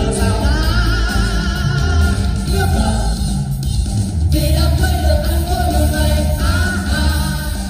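Loud amplified music with a singing voice over it and heavy bass, played through a PA system for a stage dance.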